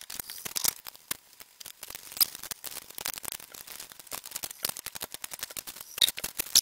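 Lug nuts being fitted and run down on a car wheel with a socket: a quick, irregular run of small metallic clicks and clinks, with a louder knock about six seconds in.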